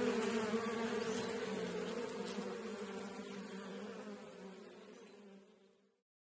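Insects buzzing in a steady drone that fades gradually and stops near the end.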